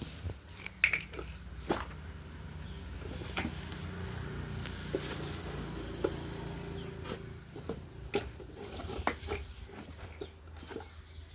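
Close-up sounds of lice nitpicking in hair: irregular sharp clicks and rustling over a low steady hum, with a quick run of short high chirps in the middle.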